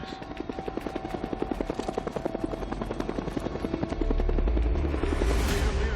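Helicopter rotor chop, a rapid even beating, with a heavier low rumble setting in about four seconds in and a rushing swell near the end as it passes close.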